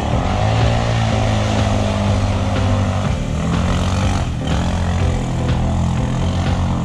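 Quad (ATV) engine revving hard under load in mud, its pitch rising and falling as the throttle works.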